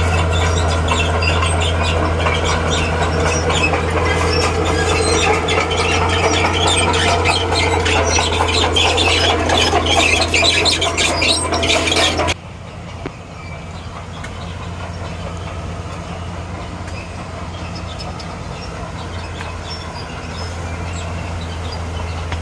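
Bulldozer's diesel engine running steadily under load while its steel crawler tracks squeal and clank. A little over halfway through, the track squeal and clatter stop abruptly, leaving the engine running more quietly.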